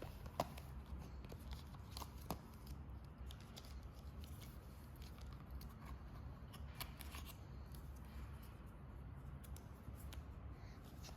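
Faint clicks and rustles of a smartwatch box and its packaging being handled, with two sharper clicks about half a second and two seconds in, over a low steady hum.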